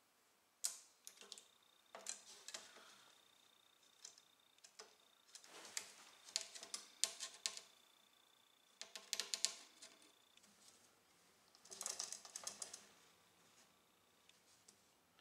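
Small metal clicks and scrapes of a steel cotter pin being pried open and worked with pliers against a wooden spar, coming in short scattered clusters.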